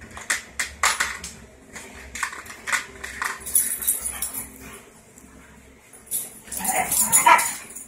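Dogs playing rough over a rope toy: a string of short, sharp dog noises and scuffles, easing off briefly and then picking up again near the end.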